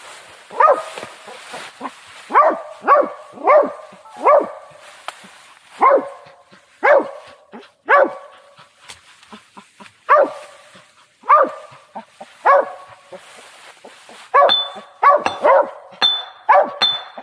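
A young Mountain Cur squirrel dog barking treed at the base of a tree: about twenty single barks spaced irregularly, some in quick runs. The barks are the sign that it has a squirrel up the tree.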